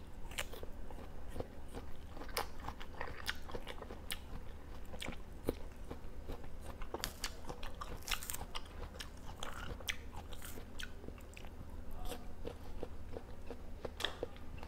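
Close-up mouth sounds of a person biting and chewing ripe jackfruit pods: irregular sharp clicks and moist chewing noises.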